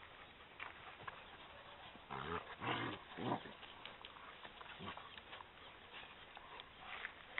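Maremmano-Abruzzese sheepdog growling: two short, low growls about two and three seconds in, among faint rustling and paw steps of the dogs on the grass.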